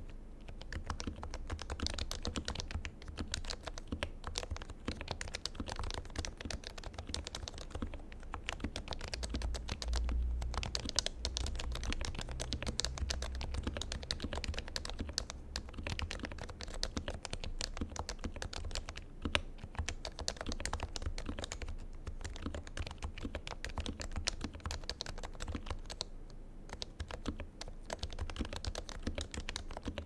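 Fast, continuous typing on an HHKB Professional 2 keyboard with lubed Topre switches and stabilisers: a dense, even stream of keystrokes, with a short lull near the end.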